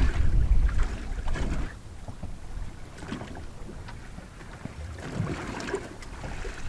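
Wind buffeting the microphone, strong for the first second and a half, then water lapping and splashing against the hull of a small open boat, with scattered light clicks and knocks.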